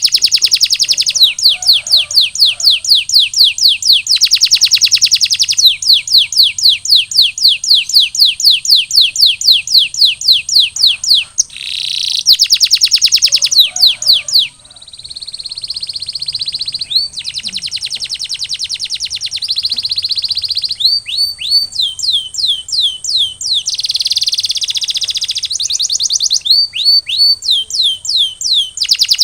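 A canary singing a long song of rolls: runs of rapidly repeated high notes, changing from one rapid trill to another, with a few sweeping notes in between.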